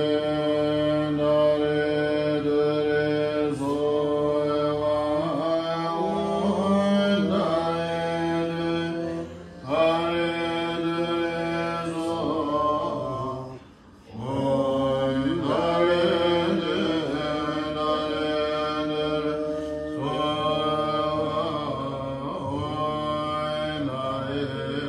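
Buddhist mantra chanting in long held notes, sung in phrases of several seconds with brief pauses between them.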